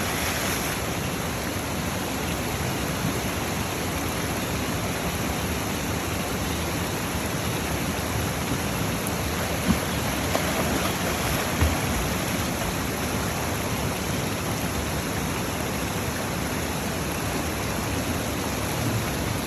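Steady rush of a waterfall's falling water, with two brief knocks about ten and twelve seconds in.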